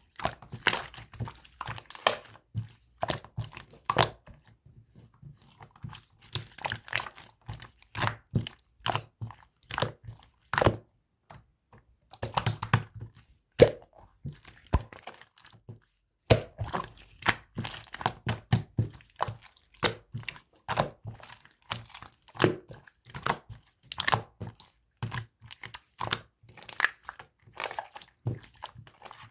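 Clear slime full of air bubbles being squeezed and kneaded by hand, giving irregular runs of crackling pops and squelches with a couple of short pauses.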